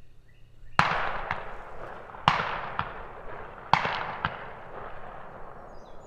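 Three shotgun shots about a second and a half apart, each rolling off in a long echo, with a fainter second report about half a second after each.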